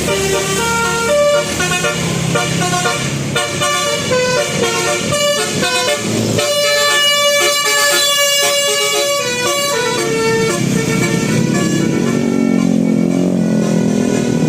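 Bus telolet horn, a Basuri multi-tone air horn, playing a tune in quick stepped notes, with several tones sounding together in the middle. In the last few seconds a lower engine sound rises in pitch as a vehicle speeds up.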